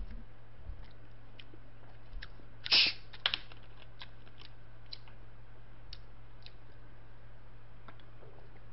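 Green plastic soda bottle picked up and handled: one short, loud hiss about three seconds in, followed by a few sharp clicks and light taps, over a steady low electrical hum.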